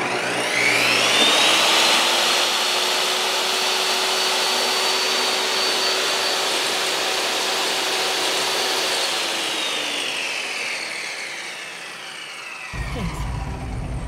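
Handheld hair dryer's fan motor spinning up with a rising whine, running steadily, then winding down in pitch as it is switched off.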